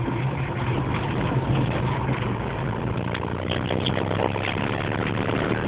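Car engine running with tyre and road noise, heard from inside the cabin while driving slowly; a steady low hum under an even rumble.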